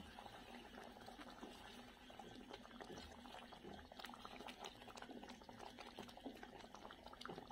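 Thick spinach purée simmering in a kadhai, faint bubbling with many small pops as a wooden spatula stirs it.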